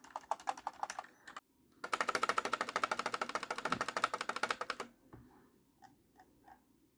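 Fast typing on a mechanical keyboard with linear red-type switches (Cherry Viola or Outemu Red), a dense run of key clicks. It breaks off briefly just after a second in and stops near five seconds. A few slower, fainter keystrokes follow.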